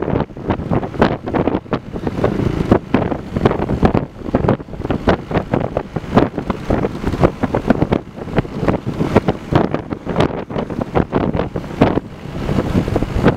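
Loud, gusty wind buffeting the microphone of a camera carried on a moving motorbike.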